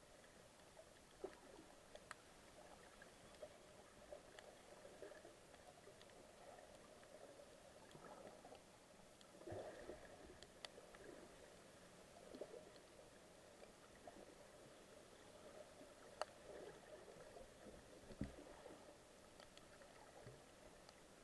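Faint underwater ambience picked up by a submerged camera: a low watery murmur with scattered small clicks and pops.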